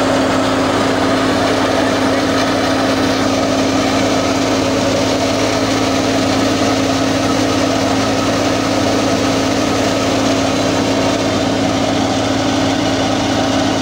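Tractor-powered wheat thresher running steadily while threshing: the tractor engine and the spinning threshing drum and belt pulley make a constant, unchanging hum.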